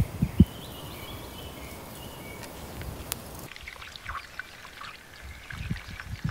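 Cooking oil trickling from a glass bottle into a pot over a campfire, with a few low knocks at the start. After a cut about halfway through, the campfire's embers crackle in short, scattered pops.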